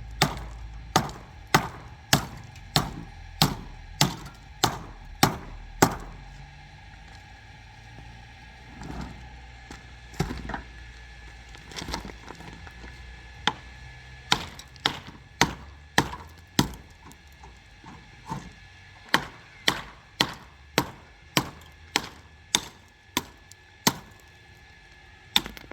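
Repeated sharp blows on wood, a steady run of about one and a half to two strikes a second, breaking off around six seconds in, a few scattered blows, then a second steady run through the rest.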